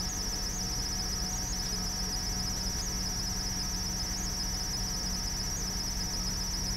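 A steady high-pitched chorus of chirping insects, with a low steady hum underneath.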